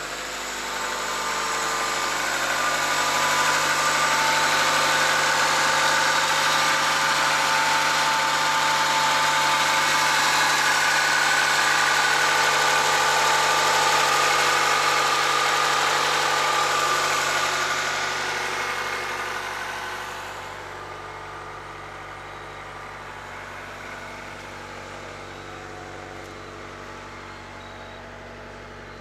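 The 2.2-litre F22A four-cylinder engine of a 1992 Honda Prelude idling steadily with the hood open. It is loudest over the first half, then drops to a lower, steady level about two-thirds of the way in.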